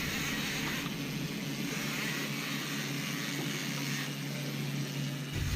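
Fishing boat's engine idling steadily under an even hiss.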